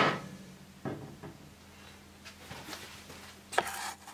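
Heavy metal jet-engine starters being handled on a workbench: a sharp knock at the start, a few lighter knocks about a second in, and a knock with a brief scrape near the end as the pneumatic starter is slid into place.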